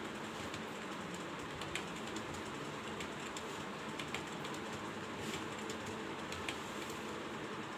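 Computer keyboard keys clicking slowly and unevenly as a home-row drill is typed, over a steady background hiss.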